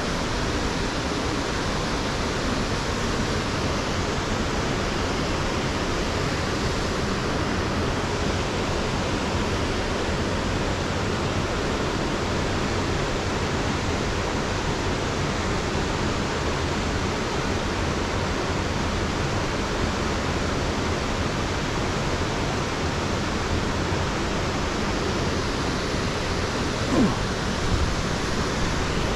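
Waterfall: water pouring steadily, an even rushing noise with no change in level. A brief short sound stands out once near the end.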